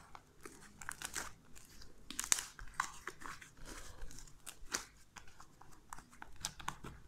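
Homemade white slime being stretched, folded and pressed by hand: quiet, irregular sticky crackling and tearing sounds.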